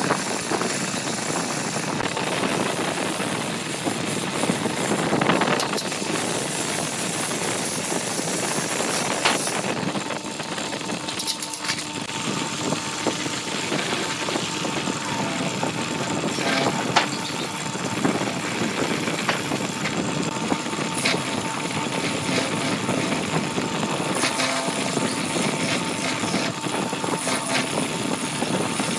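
Lathe running with cutting tools shaving the spinning workpiece. First a drill bit bores into the centre with a dense grinding rush. After about ten seconds a hand-held chisel scrapes inside the bore in short irregular passes over the lathe motor's steady hum.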